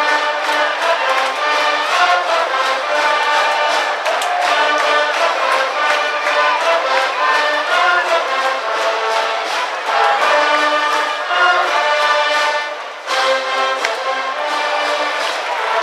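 High-school baseball cheering brass band (trumpets, trombones and other brass) playing a loud cheering tune, with a brief break about thirteen seconds in before the playing resumes.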